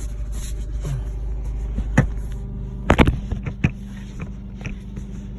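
Steady low buzzing hum from under the seats of a Lexus GS F, a fault the owner cannot identify and calls so loud. A few sharp knocks come around two and three seconds in.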